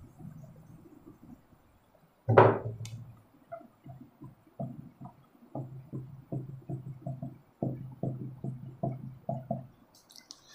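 Marker drawing on a whiteboard: a run of short strokes and taps, about two a second, as rows of small crosses are drawn. Before them comes a faint rubbing of a duster wiping the board, and about two seconds in a single sharper, louder knock.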